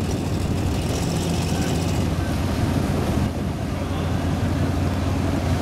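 A large vehicle engine running steadily with a low rumble.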